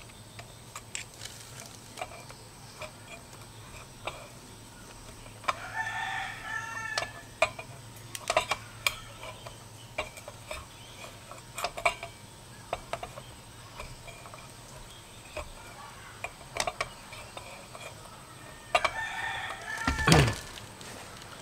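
A rooster crows twice, about five seconds in and again near the end. Scattered sharp metal clicks come from pliers working a broken motorcycle brake-disc bolt.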